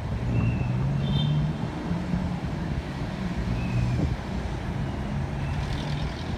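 Steady city traffic rumble with a low engine drone that wavers in pitch, and a few faint, short high chirps.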